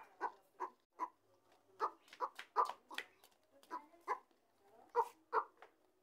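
Mating tortoise's short vocal calls, repeated about two or three times a second in an uneven rhythm.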